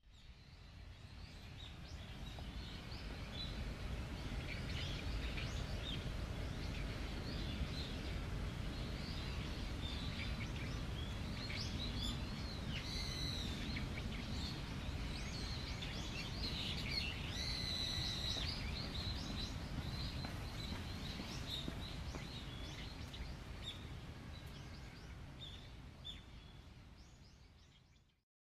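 Outdoor zoo ambience: a steady low background rumble with birds chirping and calling, a few louder trilled calls about halfway through. The sound fades in at the start and fades out near the end.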